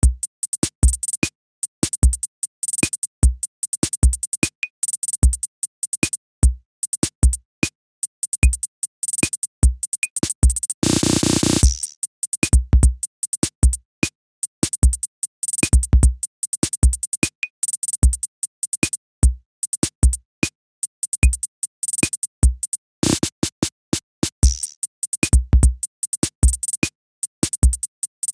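Electronic background music: a drum-machine beat of kicks and sharp clicks, with a brief burst of noisy wash about eleven seconds in and another a little past twenty seconds.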